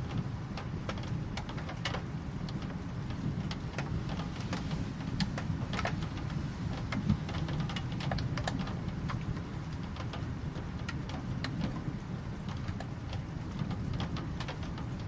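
Rain falling, with a steady low rumble underneath and scattered sharp ticks of drops hitting a surface at irregular intervals.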